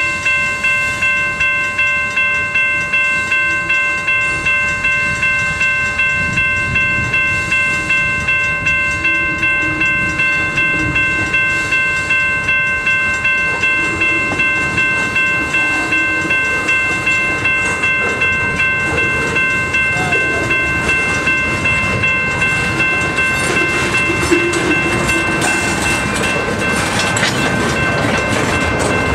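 Railroad crossing bell ringing steadily with evenly repeated strikes while a freight train of tank cars rolls through the crossing, its wheel rumble and clatter on the rails growing louder near the end.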